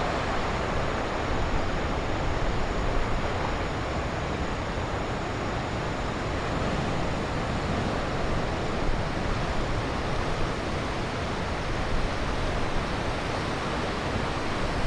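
Heavy surf of typhoon-driven waves, eight to nine metres high, breaking on the coast: a steady, even rush of noise with wind.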